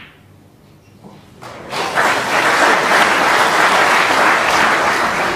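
A snooker cue tip clicks against the cue ball and balls knock together softly about a second later. Then audience applause swells up and runs on loudly for a good shot.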